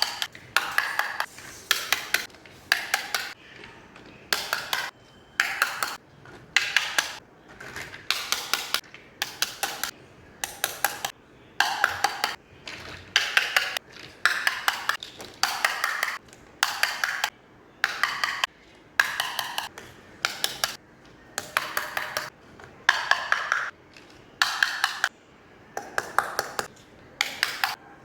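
Miniature toy kitchen pieces clinking and clicking against each other as they are handled and set down, in short clusters of sharp taps about once a second, some with a brief ring.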